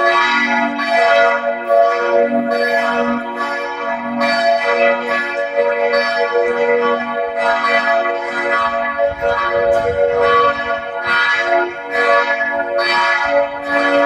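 Several church bells swinging and ringing together in a full peal from a concrete bell tower, strokes about twice a second, each ringing on into the next.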